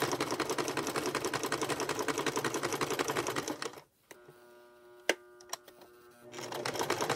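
Kenmore domestic sewing machine stitching through a coil of fabric-wrapped rope, a fast, even clatter of the needle. It stops a little past halfway, with a couple of sharp clicks in the pause, then starts stitching again near the end. The owner calls the machine noisy and a little worn out.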